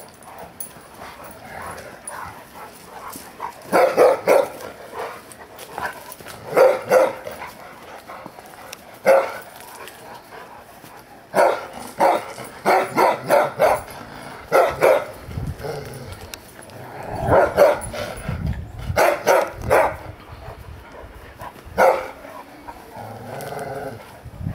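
Dogs barking in rough play: single barks and short runs of quick barks every few seconds, loudest in a rapid string about halfway through.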